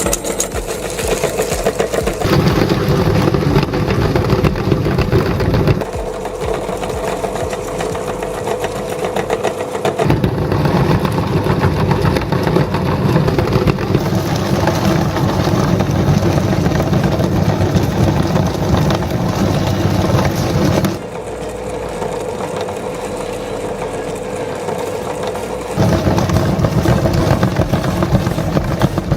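Electric meat grinder motor running steadily, its sound dropping a little and then rising again twice.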